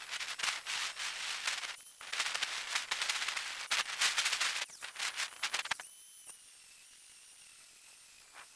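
Angle grinder with an abrasive disc grinding the steel of a sapper axe head: rough, crackling grinding for about six seconds, then much lighter contact, with the grinder's high motor whine going on more quietly.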